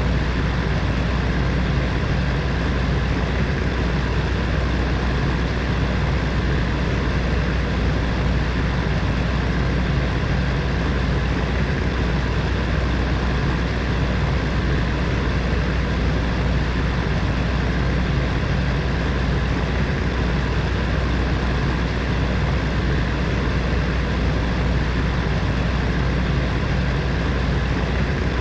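Electric heater fan running steadily, a constant low hum with an even whooshing rush of air over it.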